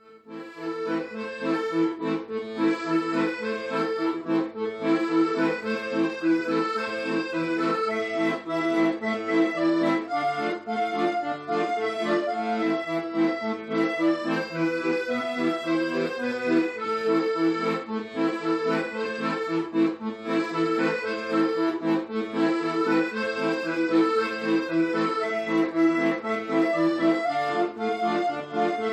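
Background music led by an accordion in a traditional folk style, with a steady rhythm.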